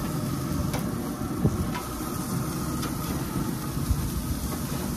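Turkey burger patties sizzling on the hot grate of a Pit Boss pellet grill with the lid open, a steady crackling hiss. A few light clicks of metal tongs as the patties are lifted off.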